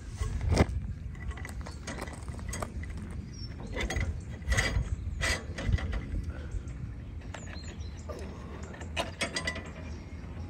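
Timber packing being handled and pushed in under a steel railway point frame on gravel: irregular knocks and clinks of wood against the steel rails and tie bars.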